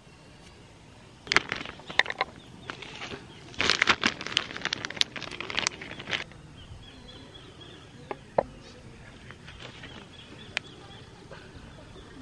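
A run of sharp clicks and knocks between about one and six seconds in, densest near the middle, then a few single ticks over a quiet outdoor background with a faint steady high tone.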